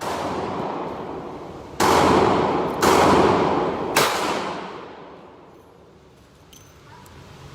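Three gunshots on a shooting range, about a second apart starting near two seconds in, each followed by a long echoing tail that dies away.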